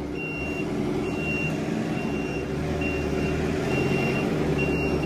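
Merlo P27.6 telehandler's reversing alarm beeping about once a second, six beeps, the sign that the machine is in reverse, over the steady running of its engine.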